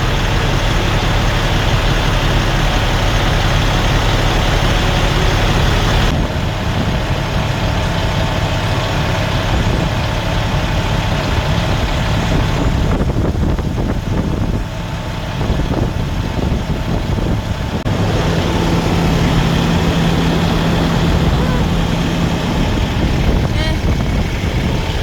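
Diesel truck engines idling steadily with a constant rumbling hum; the mix shifts about six seconds in, and a steadier low hum comes up for a few seconds near the end.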